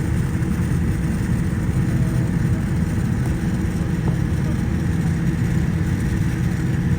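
Steady low rumble of jet airliner engines at taxi power.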